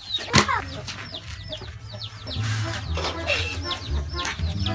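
A hen with her chicks: the chicks peep over and over in short, high calls while the hen clucks. One sharp knock sounds about half a second in.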